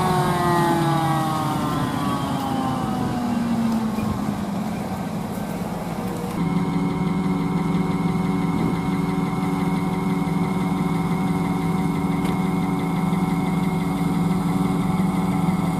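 Claas Jaguar 980 self-propelled forage harvester running while chopping maize. A whine falls steadily in pitch over the first four seconds. From about six seconds in, a steady whine runs over a low hum.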